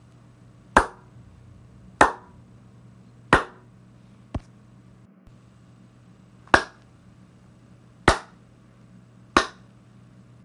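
Single hand claps, one at a time: six loud ones spaced a second or two apart and a fainter one about midway, each with a short echoing tail, over a low steady hum.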